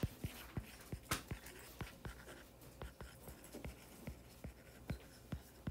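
Stylus tip tapping and scratching on a tablet's glass screen while handwriting. It makes a faint run of light, irregular clicks, several a second.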